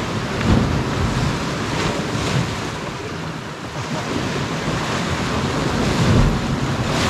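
Sea waves washing against a rocky shore, with wind buffeting the microphone in a few low gusts.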